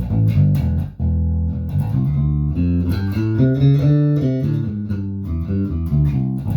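Harley Benton JJ-55 OP electric bass, strung with DR Pure Blues nickel strings, played with the pickup blend centered and the treble turned all the way up, a really loud, bright tone. It plays a line of plucked notes that change pitch, with a short break about a second in.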